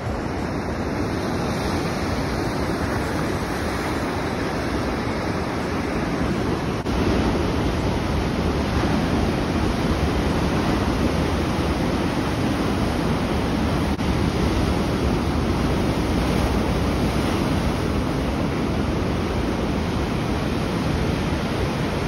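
Ocean surf breaking and washing up the beach: a steady rushing wash of waves that gets a little louder about seven seconds in.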